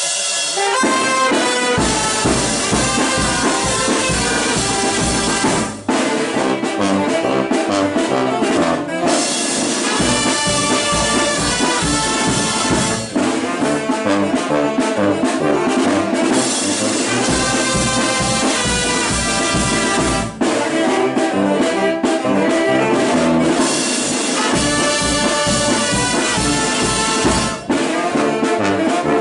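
Mexican brass band of trumpets, trombones, saxophones, sousaphone, drum and cymbals playing a lively tune, with a steady bass beat and short breaks between phrases.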